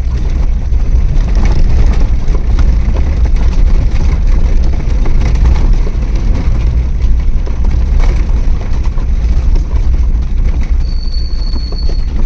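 A vehicle driving on a forest road: a loud, steady low rumble of engine and road noise, with a few brief knocks. Near the end a short, high, steady tone sounds for about a second.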